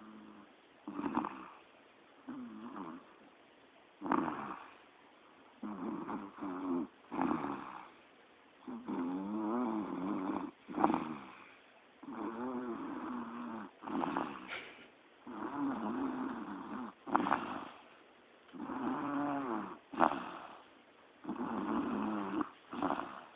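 Snoring: a run of breaths every one to two seconds, some drawn out with a wavering, buzzing pitch and some short and sharp.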